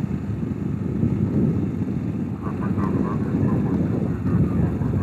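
Diesel engine of a large coach bus running as it creeps and turns across a yard, a deep, steady rumble.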